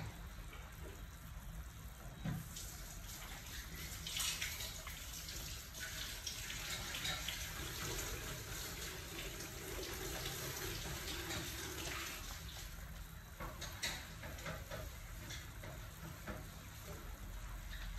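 Pot of meatball and vegetable soup boiling hard: a steady bubbling with scattered small pops.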